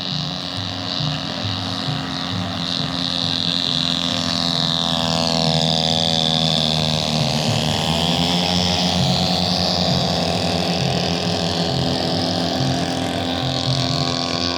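Radio-controlled model Cessna's engine running in flight, a steady buzz whose pitch dips and swings as the plane passes.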